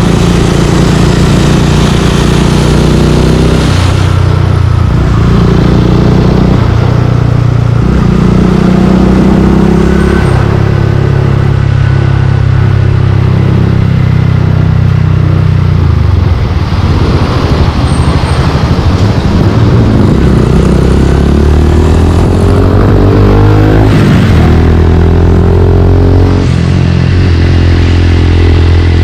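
Suzuki Gixxer 155's single-cylinder engine through a Yoshimura exhaust, under way. The note holds steady and shifts pitch in steps as throttle and gears change, with a rising rev about three-quarters of the way through.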